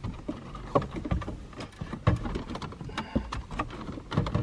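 Irregular clicks, knocks and scraping of plastic and metal as an aftermarket double-DIN car stereo head unit is slid and pushed into the dashboard opening. The loudest knock comes about two seconds in.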